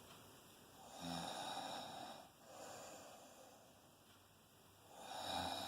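Faint snoring: slow, rasping breaths, one starting about a second in with a shorter one right after, and another near the end.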